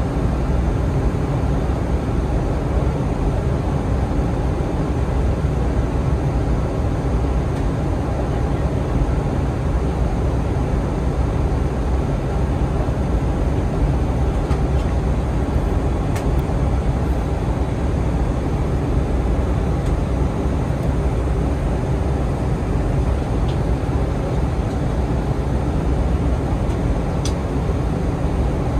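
Steady low rumble inside the passenger cabin of an Airbus A320 descending to land: jet engines and rushing airflow on the fuselage, with a couple of faint ticks.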